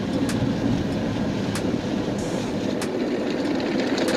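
Automatic car wash machinery and foam spray working over the car, heard from inside the closed cabin: a steady rumbling wash with light ticks about every second and a quarter.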